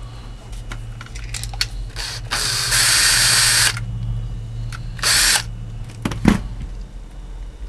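Electric screwdriver running in two bursts, a long one about two seconds in and a short one about five seconds in, taking the chrome trim off a Galaxy DX-98VHP CB radio. Small handling clicks come between, and there is a sharp knock a little after six seconds.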